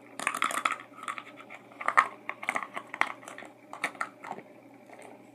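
Off-camera rummaging: a quick run of scratches, clicks and rustles that stops about four and a half seconds in.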